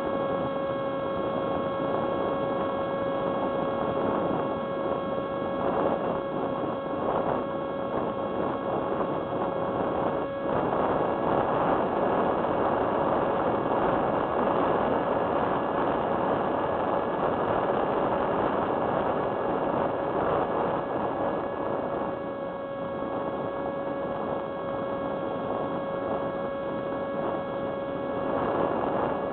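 Hubsan SpyHawk foam FPV plane in flight, heard through its built-in onboard camera: the electric motor and pusher propeller giving a steady whine over a constant rush of air.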